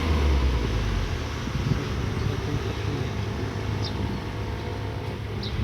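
Excavator's diesel engine running steadily with a low rumble, loudest in the first second. A few faint short high chirps come through near the end.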